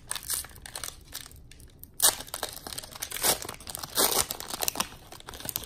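Wrapper of a Panini Fortnite Series 1 trading card pack being torn open and crinkled by hand: a run of crackling rips, the sharpest about two seconds in, with more strong ones around three and four seconds.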